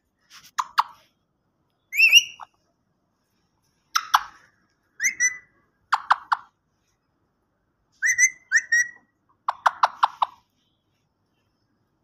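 Alexandrine parakeet making short whistled calls mixed with quick clicking chatter, in bursts every second or two. Near the end comes a fast run of about five clicks.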